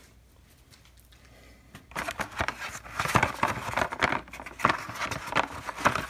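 Cardboard gasket box and the rubber intake manifold gaskets inside it being handled, a dense run of crinkles, rustles and light taps that starts about two seconds in.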